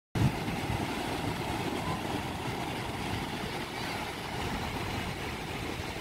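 Small waves breaking and washing up over a sandy beach: a steady surf noise with a strong low rumble underneath.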